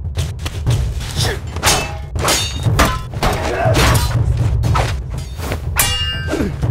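Staged sword-and-shield fight sound effects: a quick run of hits and swishes of blades striking round shields, with a ringing metallic clang near the end, over a steady low drone.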